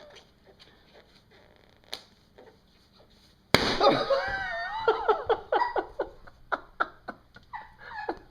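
A sudden loud startled cry about three and a half seconds in, followed by repeated short bursts of laughter.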